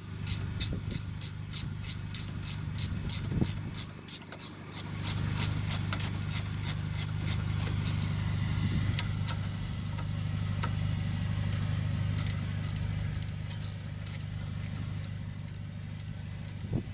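Ratchet wrench clicking rapidly, about four clicks a second, while brake caliper bolts are run in and snugged up; the clicking thins out after about eight seconds. A steady low engine hum runs underneath from about five seconds in.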